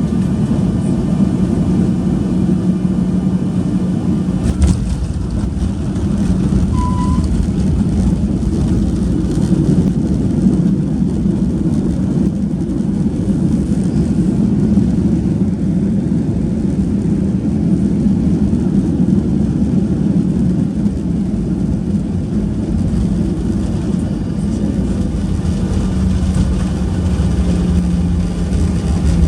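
Steady low rumble of a Boeing 737-800's CFM56 jet engines and airflow, heard from inside the passenger cabin, with a steady hum. A single short click comes about five seconds in.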